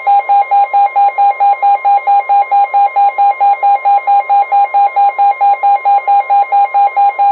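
Weather radio receiver's alert beeping rapidly, about five beeps a second, over the steady 1050 Hz warning alarm tone of a NOAA Weather Radio broadcast, signalling that a new warning is about to be read. The beeping stops near the end, leaving the steady tone.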